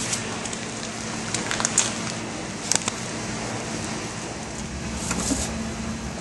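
Plastic packaging crinkling and rustling as it is handled, in a few short crackly bursts, over a steady low hum.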